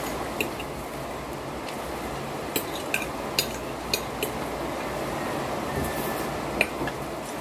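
Metal fork clinking and scraping against a ceramic plate while eating spaghetti: several short sharp clinks at irregular spacing over steady background noise.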